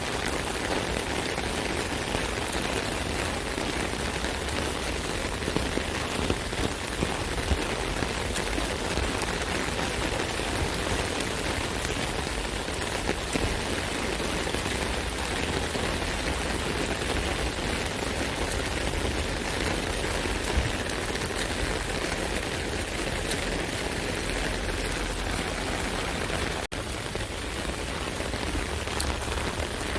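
Rain falling steadily on an umbrella: a dense, even patter, with heavier drops striking sharply now and then.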